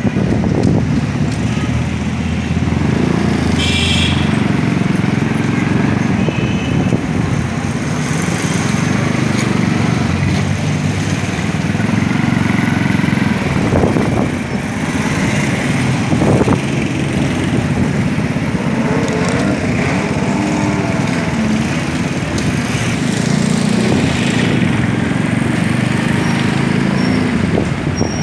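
Small engine running steadily under the camera as it rides through traffic, its low hum wavering with the throttle, over general street traffic. A brief high-pitched beep comes about four seconds in.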